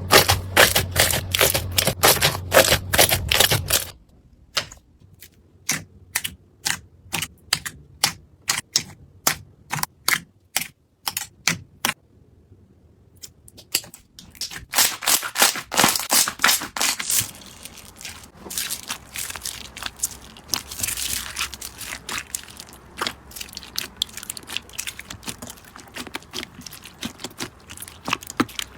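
Slime being squeezed and pressed by hand: dense crackling at first, then a run of separate sharp clicks about two a second, a short pause about twelve seconds in, then more crackling and popping.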